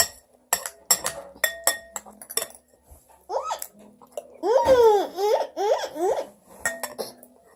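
A child laughing in a run of high, rising-and-falling bursts, preceded by several sharp clinks of dishes and cutlery and followed by a few more clinks.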